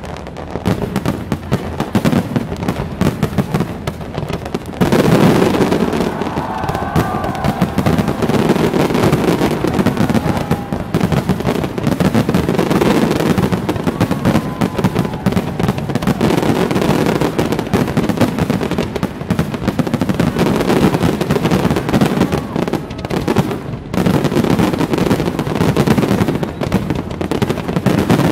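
A dense fireworks barrage: rapid, overlapping bangs without a break, growing louder about five seconds in.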